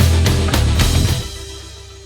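Rock music with steady drum hits that stops about a second in, leaving one held note fading out.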